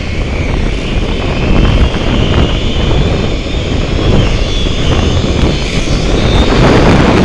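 A zip line trolley running fast along its steel cable: a steady, loud whirring rumble of the pulleys mixed with wind buffeting the microphone, growing gradually louder.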